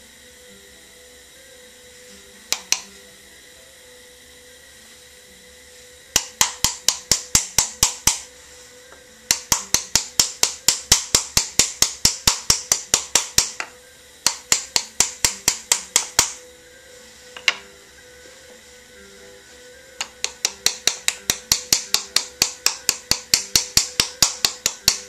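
Wooden paddle slapping the sides of a leather-hard clay cup to flatten them square: quick runs of sharp pats, about five a second, broken by short pauses, with a lone pat or two in the gaps.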